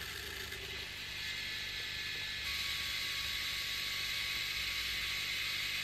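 HP Sprocket Plus ZINK pocket photo printer running after print is pressed: a faint steady whir with a thin whine that steps down in pitch and gets a little louder about two and a half seconds in, as its motor starts drawing the paper through.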